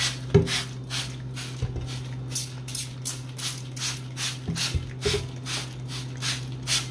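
Trigger spray bottle squirting hydrogen peroxide onto a pan caked with baking-soda paste, a quick hiss repeated about two to three times a second. A few soft knocks come between the squirts, over a steady low hum.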